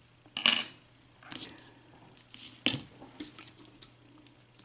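Small metal tools clinking and clicking as lock picks and a tension wrench are handled, with one loud ringing clink about half a second in, then several lighter clicks.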